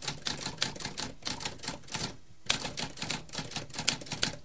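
Typewriter keys being struck in quick, uneven succession, with a short pause a little after two seconds in, broken by one sharp, louder clack, after which the typing resumes.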